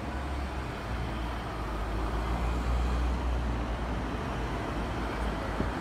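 Road traffic: a steady low engine rumble with a wash of street noise, swelling a little in the middle.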